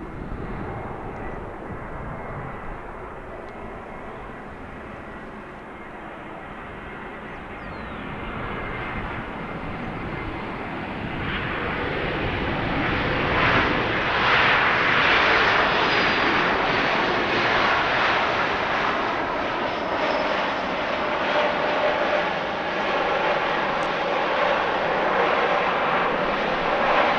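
Jet airliner's engines, a continuous rushing noise that grows louder over about eight seconds as the aircraft comes closer, then stays loud.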